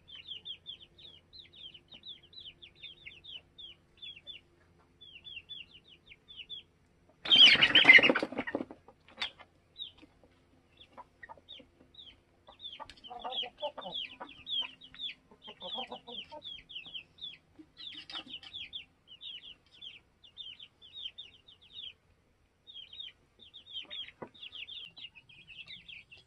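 Young chickens peeping steadily in short, high, falling chirps. About seven seconds in comes a loud, brief squawk with a flurry of wing flapping, and a few lower clucks from grown chickens follow a little later.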